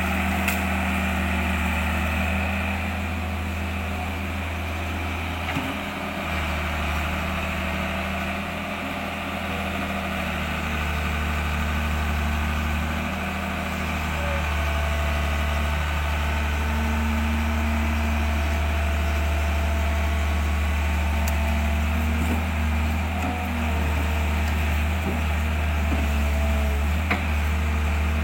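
An engine running steadily at idle, a low, even hum with a few steady tones above it.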